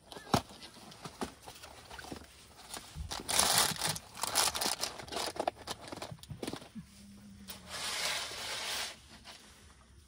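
Cardboard box and packaging of a charcoal briquette being opened and handled: a few light taps, then two spells of rustling and crinkling.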